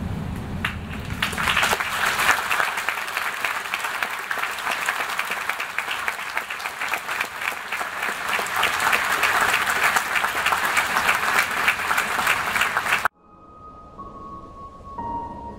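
Audience applauding in a large hall, starting about a second in and cut off suddenly near the end, where a few soft music notes begin.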